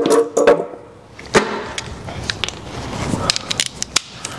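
Metal hand tools clinking and knocking as a 10 mm wrench is picked up, with one sharp clank about a second and a half in and a run of lighter clicks near the end.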